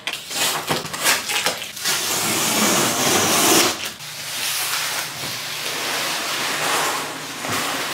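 A large cardboard shipping box being handled and opened: crackling and tearing at the taped top, then a long scraping hiss as the box slides across the floor, and rustling as the flaps are folded open.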